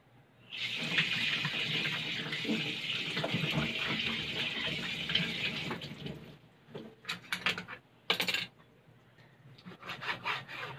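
Kitchen tap running into a stainless-steel sink while hands are rinsed under it, a steady splashing hiss that stops about six and a half seconds in. A few short clicks and knocks follow near the end.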